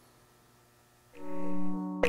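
Near silence, then music starts about a second in with a few held notes.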